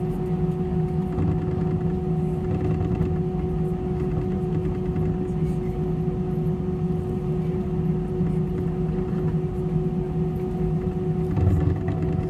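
Cabin noise of an Airbus A320-214 taxiing with its CFM56 engines at idle: a steady low rumble with a steady hum-tone over it, and a short louder rumble near the end.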